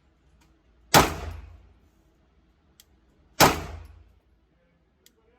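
Two pistol shots from a 9mm Glock 19 Gen 4, about two and a half seconds apart, each a sharp crack with a short echoing tail. A third shot lands right at the end.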